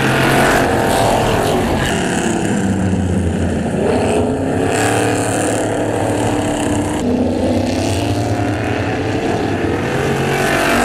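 A pack of race trucks' engines running hard as the field takes the green flag and races through the turns. Several engines are heard at once, their pitch rising and falling, and the sound shifts abruptly a few times.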